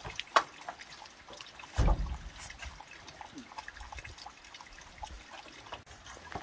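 Aluminium window sash being worked loose from its frame by hand: a sharp click, then a heavy dull thump about two seconds in, and scattered small knocks. Water drips and trickles throughout.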